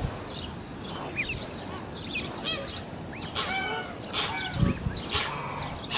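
A flock of young geese and ducklings peeping: a steady stream of short, high, arched calls overlapping one another. A dull low bump sounds about three-quarters of the way through.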